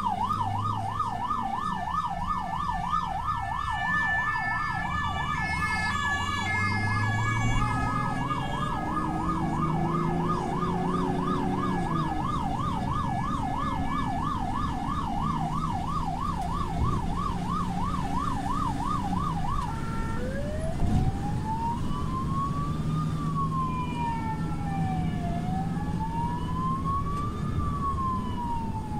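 Ambulance siren on a fast yelp that switches about twenty seconds in to a slow wail, rising and falling every couple of seconds. Under it the ambulance's engine hums, climbing in pitch as it speeds up partway through.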